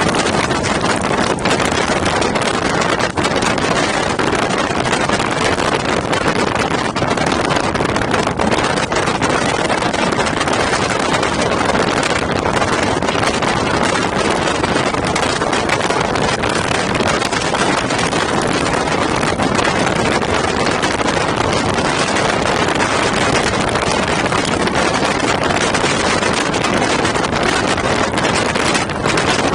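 Motorcycle ride at speed: steady wind rush on the microphone mixed with engine noise.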